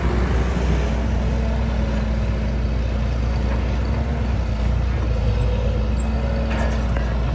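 Hydraulic excavator's diesel engine running steadily, with a brief clank or two near the end.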